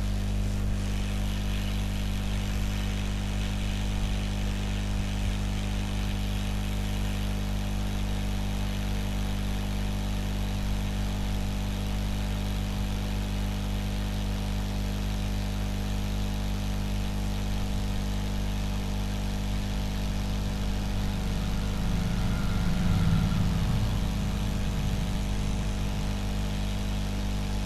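Hot-air SMD rework gun blowing steadily with an electrical hum, heating a phone board to melt the solder on the charging jack. A slight swell near the end.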